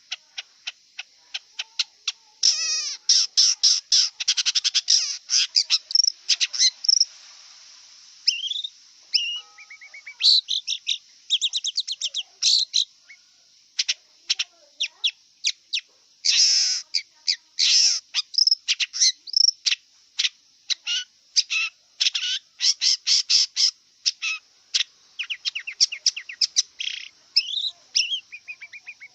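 Long-tailed shrike (cendet) singing: a continuous, varied song of rapid, sharp chattering notes and quick trills, with short pauses between phrases.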